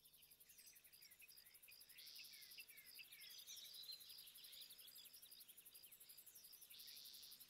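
Faint birdsong and insect trilling: many short chirps and downward-sliding whistles, with a buzzing insect trill about two seconds in and again near the end.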